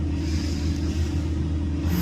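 An engine running steadily with a low rumble. A higher hiss comes in just after the start and fades near the end.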